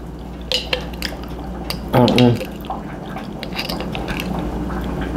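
A knife scraping in a jar, then the jar's screw lid being twisted, giving a few small clicks and grinding ticks.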